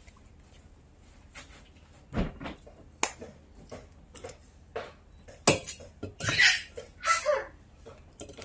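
Several sharp knocks and clatters of dishes and utensils, spaced a second or more apart, with a short burst of a voice a little over six seconds in.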